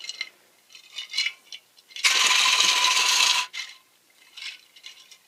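Plastic action-figure parts clattering inside a glass mason jar of paint-stripping solution as the jar is shaken to loosen the paint: a few light knocks, then one hard shake of about a second and a half near the middle, then a few faint clicks.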